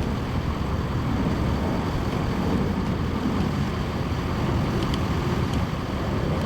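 Motorboat engine running steadily under way: a low, even rumble with water noise.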